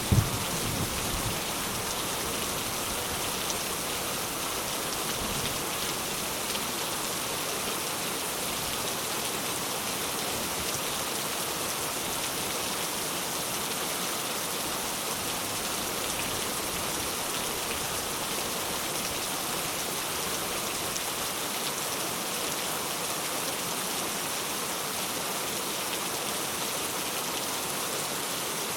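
Steady rain falling as an even hiss of drops on surfaces. There is a short low burst of thunder at the very start.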